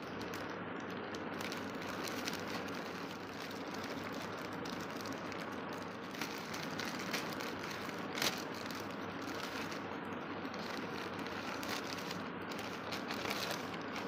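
Plastic courier mailer bag and paper wrapping crinkling and rustling as the package is opened and the folded clothing pulled out, with one sharper crackle about eight seconds in.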